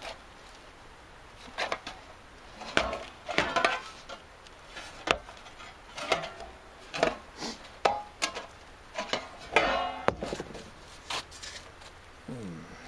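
Thin sheet metal being flexed and handled against a wooden workbench: irregular clanks, taps and rattles with a brief metallic ring, the loudest cluster near the end as the bent hood is worked by hand.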